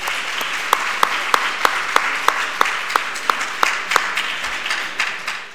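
Audience applauding, with one person's claps louder and close to the microphone at about three a second; it fades out near the end.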